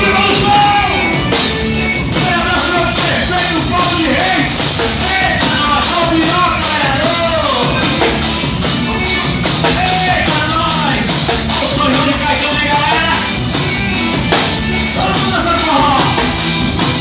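Live forró band music with a steady beat and a melodic lead line.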